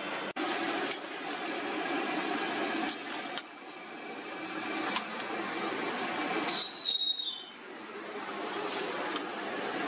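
Jalebi deep-frying in a wide pan of oil at a street stall: a steady sizzling hiss mixed with the stall's background bustle. A brief high squeal sounds about two-thirds of the way through.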